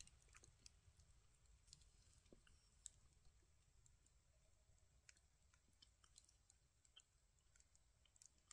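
Near silence with faint, scattered crackles and clicks from a small campfire.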